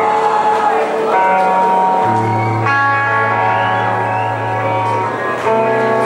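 Live band music with no singing: guitar chords held and ringing, changing to a new chord every second or two.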